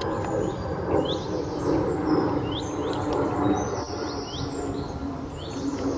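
Small birds chirping, short curved calls repeating about once a second, over a steady lower background noise.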